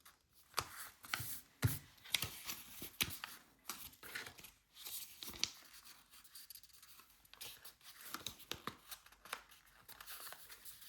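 A sheet of A4 paper being folded and creased by hand: faint, irregular rustling and crackling of the paper.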